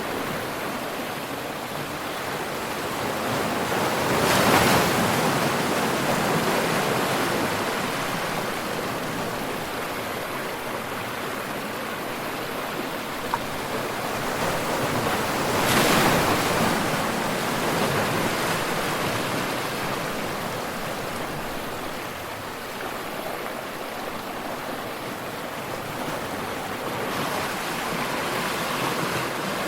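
Ocean waves washing onto a shore, a steady wash of surf with two larger waves breaking about four and a half seconds in and again near sixteen seconds, each swelling and then fading away.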